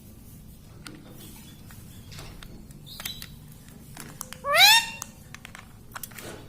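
Rose-ringed parakeet giving one short, loud call that sweeps up in pitch, about four and a half seconds in, with a few faint clicks around it.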